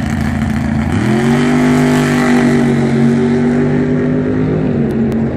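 High-performance car engine held at raised revs on a drag-strip starting line, as a car stages before launch. Its steady pitch steps up about a second in, holds, and eases back down near the end.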